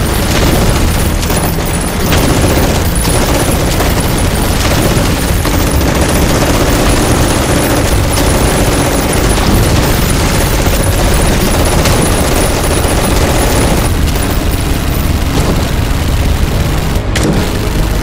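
Dense, rapid gunfire with booms, mixed over music: a battle sound effect track.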